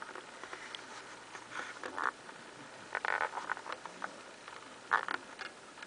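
Soft rustling and scraping of hands cupping and shifting a small pet gecko close to the microphone, in three short bursts with small clicks between them.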